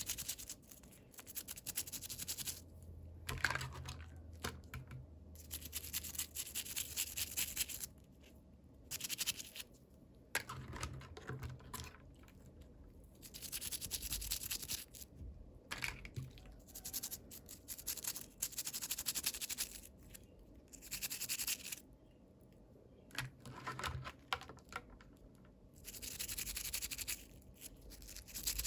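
Packaging being scratched, peeled and handled during an unboxing, in repeated bursts of a second or few with short quieter pauses between.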